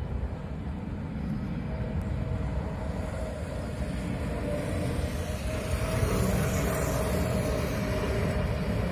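Jet airliner's engines on landing approach: a steady rumble with a thin whining tone that sets in about two seconds in, the hiss swelling and growing a little louder in the second half as the aircraft comes closer.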